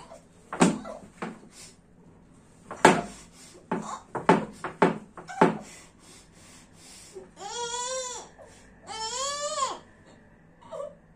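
A woman crying through a cloth gag: a run of short, sharp sobbing breaths, then two long, wavering, muffled cries in the second half.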